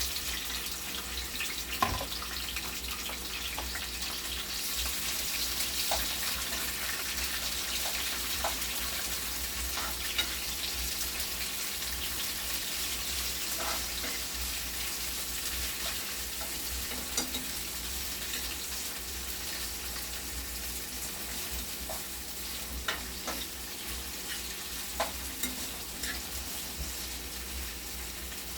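Chopped onion, bell pepper, scotch bonnet pepper and thyme sizzling as they sauté in hot oil in a frying pan. The sizzle is strongest in the first few seconds, with a spoon stirring and now and then clicking against the pan.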